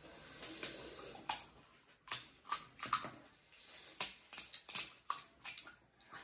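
Crisp, hollow pani puri shells crunching: shells being cracked open with the fingers and chewed, in a run of sharp, irregular crackles.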